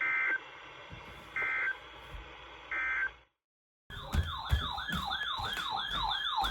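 Three short bursts of Emergency Alert System data tones about a second and a half apart, the end-of-message signal closing a NOAA Weather Radio warning. A brief dropout follows, then an electronic siren-like alert tone starts, sweeping down in pitch and snapping back about three times a second, signalling that a new warning is coming in.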